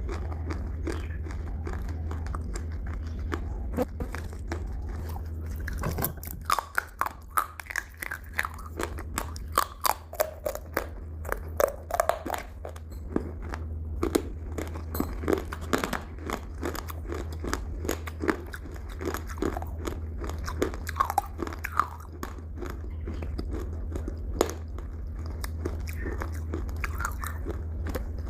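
Close-miked chewing and biting of crunchy food, quieter for the first few seconds, then a dense run of sharp crunches, over a steady low hum.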